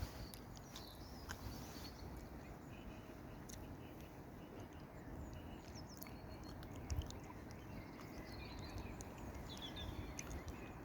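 Small birds chirping faintly over a low background rumble, with a single soft thump about seven seconds in.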